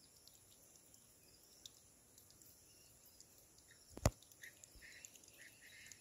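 Quiet outdoor ambience with faint scattered ticks. One sharp knock comes about four seconds in, followed by a few short, high chirps near the end.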